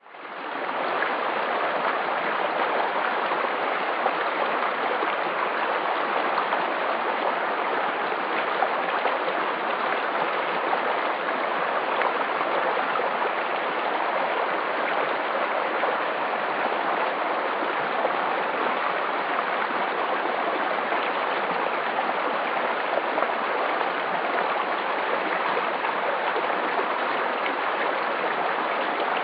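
Running water rushing steadily, like a stream, at an even level. It fades in over the first second.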